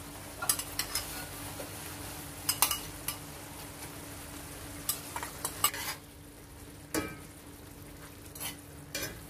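A steel ladle clinking against a steel pan several times as boiled eggs are lowered into a simmering egg-roast gravy and the gravy is spooned over them, over the steady sizzle of the simmering curry.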